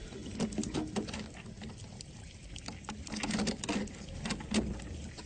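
Rapid, irregular clicking and crackling, densest and loudest about three to four and a half seconds in, over a low hum.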